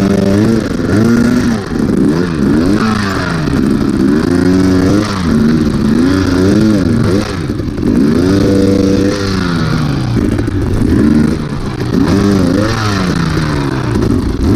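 Dirt bike engine revving in repeated short throttle bursts, its pitch climbing and falling back every second or so, as the bike works slowly up a rocky climb.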